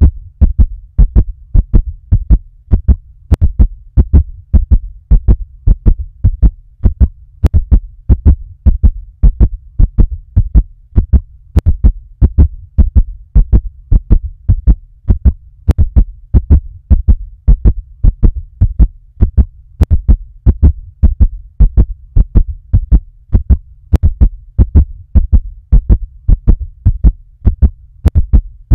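Heartbeat sound effect beating fast and steadily: low, paired lub-dub thuds over a low hum, with a faint click about every four seconds.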